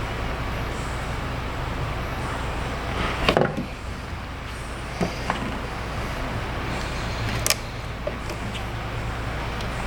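Steady low workshop hum, with a few light clicks and knocks from parts being handled; the loudest is a short clattering knock about three seconds in.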